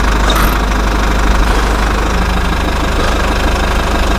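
Steady, loud engine-like drone from a remote-control construction vehicle, running without a break.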